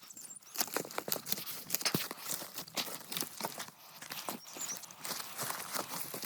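Dry grass, twigs and brush rustling and crackling in quick, irregular clicks and snaps as the vegetation is handled or trodden on.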